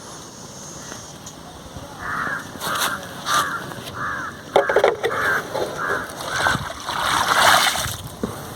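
An animal calling over and over: a run of about ten short calls, roughly two a second, beginning about two seconds in and loudest near the end.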